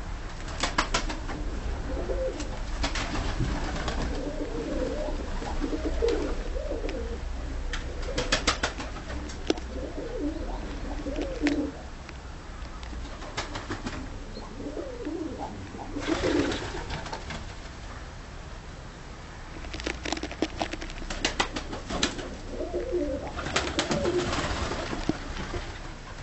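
Dönek pigeons cooing over and over inside their coop, with clusters of sharp clicks and scuffles among the birds.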